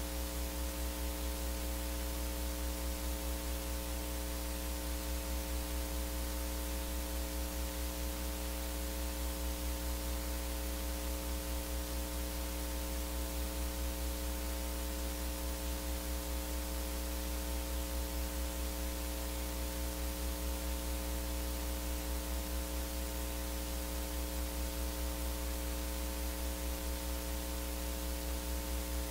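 Steady electrical mains hum with a buzz of evenly spaced overtones and a constant hiss, from the audio line of a sound or recording system.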